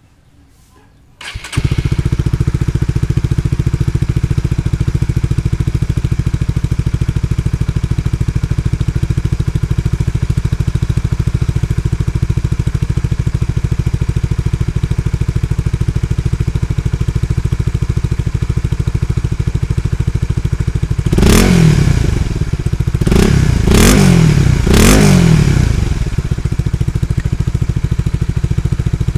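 Honda Supra GTR 150's single-cylinder engine through an aftermarket exhaust. It comes in suddenly about a second in and idles steadily. Around two-thirds of the way through it is blipped with a few quick throttle revs, then drops back to idle.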